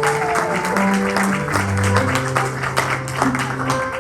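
Background music with guitar: held notes over quick, even strumming strokes.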